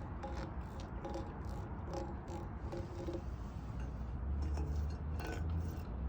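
Outdoor ambience at night: a steady low rumble with scattered light clicks and a few short faint tones in the first half. The rumble swells about four seconds in.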